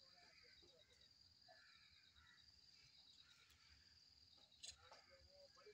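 Faint outdoor ambience: an insect trilling high and thin in repeated phrases of about a second, with a brief faint click about four and a half seconds in.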